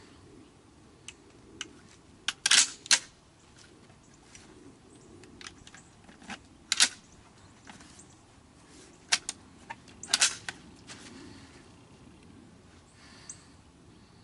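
Suppressed 7.62×51 mm XM25 sniper rifle firing single shots a few seconds apart, each a sharp crack. The loudest come about two and a half to three seconds in, with more near seven and ten seconds, plus a few fainter clicks in between.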